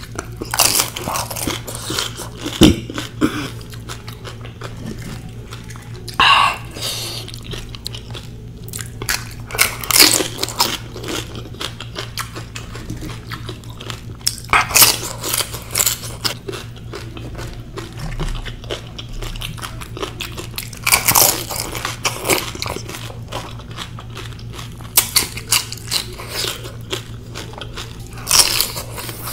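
Crisp pani puri shells crunching as they are bitten, followed by wet chewing, in loud bursts every few seconds.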